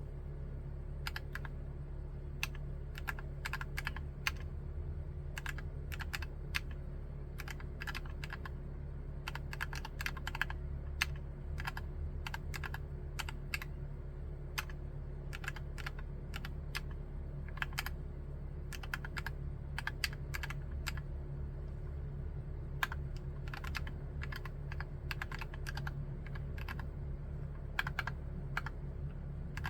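Typing on a Drop + OLKB Preonic MX Kit V3 ortholinear mechanical keyboard with Gateron Black linear switches: a run of irregular keystroke clacks with a few short pauses, over a steady low hum.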